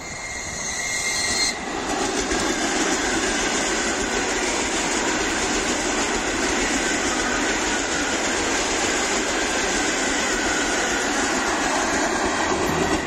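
ED4M electric suburban train passing close by at speed: a steady rush and rumble of wheels on rail that builds over the first second or two and then holds. A thin high tone sounds briefly at the start.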